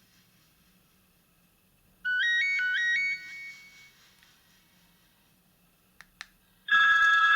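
Ringtones from the Maxcom MM462BB phone's speaker. About two seconds in, a short phrase of quick rising high notes plays once and fades. Two clicks follow, then near the end a different ringtone starts as a loud, held chord.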